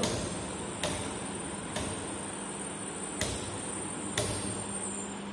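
Rotor-resistance selector switch of a slip-ring induction motor starter clicking through its positions, five sharp clicks spread about a second apart as the rotor resistance is cut out step by step, over a steady hum.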